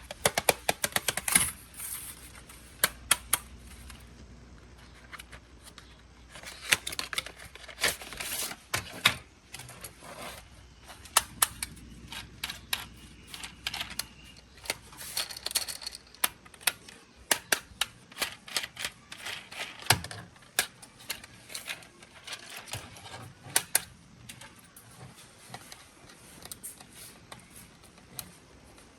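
Hard plastic clicks, taps and light rattles of a transparent toy racing car and its parts being handled and taken apart, coming in irregular clusters.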